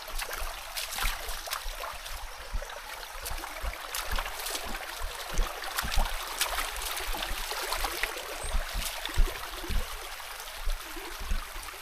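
Footsteps and rustling of a person walking a dirt path through brush, with soft thumps every half second or so over a steady rushing hiss full of small crackles.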